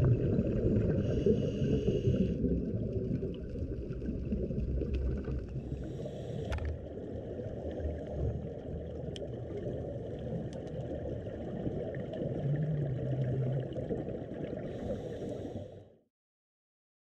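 Muffled underwater rumble of scuba divers breathing through regulators and exhaling bubbles, heard from inside an underwater camera housing, with a higher hiss now and then. It cuts off suddenly about a second before the end.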